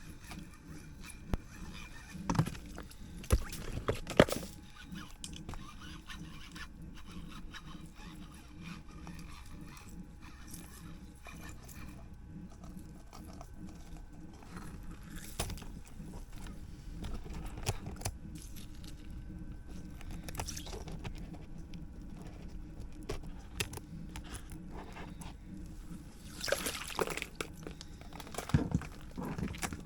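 Ice-fishing tackle being worked at an ice hole: scattered short knocks and scrapes with some water sloshing, the sharpest knocks in the first few seconds and another cluster near the end.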